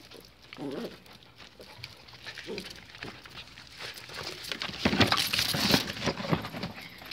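A pinscher being caught and grabbed for its leash: a few short whines early on, then loud scuffling and scrabbling, densest and loudest about five to six seconds in, as the dog squirms and is lifted.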